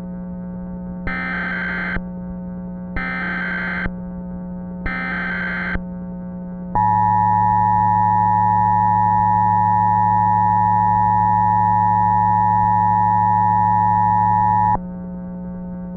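Emergency Alert System header: three short bursts of SAME data tones, each about a second long and about two seconds apart, then the two-tone EAS attention signal held steady for about eight seconds before cutting off sharply. It marks the start of an emergency alert broadcast. A steady low drone runs underneath.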